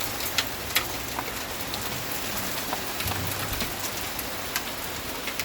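Hail and rain coming down hard: a steady hiss with scattered sharp ticks of hailstones striking.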